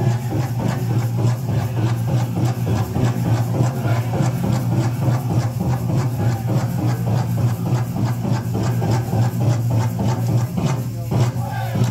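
Powwow drum beating a fast, steady rhythm over a low, steady drone.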